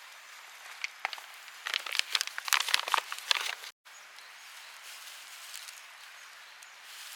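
A few seconds of close crinkling and clicking handling noises, like packaging or gear being handled, over a faint steady outdoor hiss; the sound cuts out abruptly a little past the middle.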